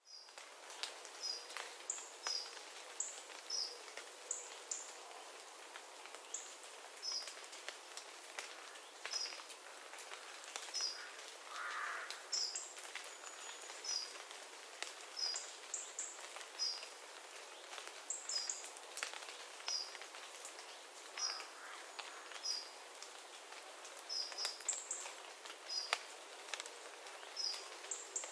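Forest ambience after rain: birds giving short, high chirps over and over, one or two a second, over a soft hiss. Scattered sharp ticks of water dripping from the trees.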